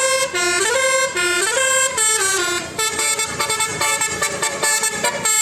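Bus's Basuri telolet horn playing a tune: a loud multi-tone horn stepping quickly from note to note, repeating a short melody.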